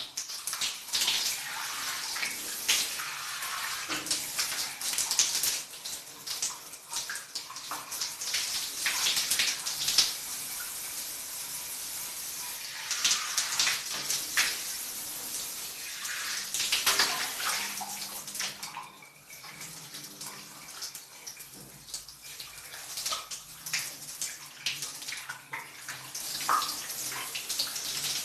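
Shower water falling and splashing, its hiss swelling and changing irregularly as the spray is broken up by someone washing under it, with a lighter stretch about two-thirds through.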